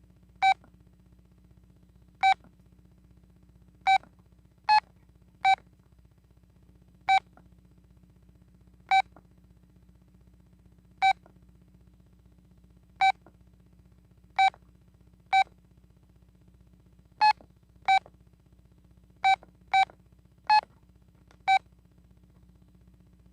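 Key-press beeps of a Telit mobile phone: about seventeen short electronic beeps, each a single buzzy tone, at irregular intervals as the buttons are pressed. A few are slightly higher in pitch than the rest.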